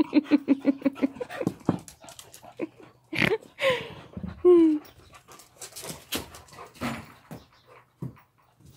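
A dog panting fast and hard, about six breaths a second, out of breath from play. The panting stops after about a second, and the dog then gives three short whines that fall in pitch; the third is the loudest.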